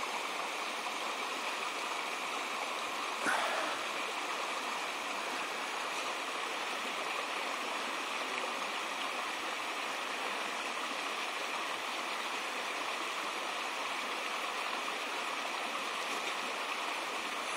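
Small rocky forest creek running steadily over stones and shallow riffles, with one short, louder blip about three seconds in.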